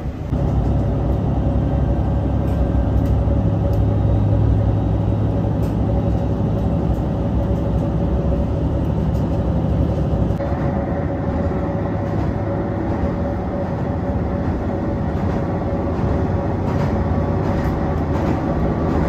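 Inside a Hisatsu Orange Railway diesel railcar on the move: steady engine and running noise with a held mid tone and faint clicks from the rails. The sound shifts a little about halfway through.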